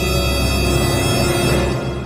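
Dark, ominous background music: a held drone with deep bass and many sustained tones, starting to fade out near the end.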